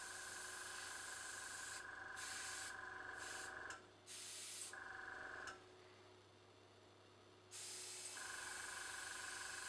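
Dual-action airbrush spraying acrylic paint, a steady hiss of air over the whine and hum of a small tankless compressor. Air and motor cut out briefly about four seconds in, and again for about two seconds past the middle as the trigger is released, then start again.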